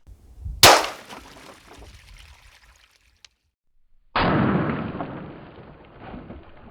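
Tokarev TT-33 pistol firing a single 7.62x25mm shot about half a second in, a sharp crack that dies away quickly. A few seconds later, after a short silence, a second loud, duller blast starts suddenly and trails away over about two seconds.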